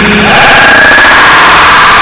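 Hundreds of overlapping copies of J. Jonah Jameson's laugh stacked into one dense, steady, heavily distorted wall of noise, clipped at full volume.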